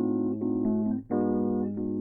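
Instrumental music: keyboard chords played over a steady bass line, changing every half second or so, with no singing and a brief break about a second in.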